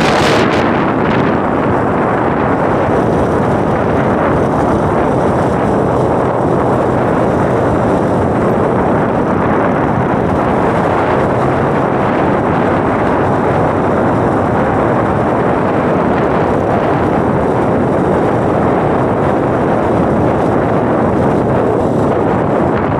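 Steady rush of wind on the microphone mixed with engine and road noise from a moving two-wheeler, a little hissier in the first second.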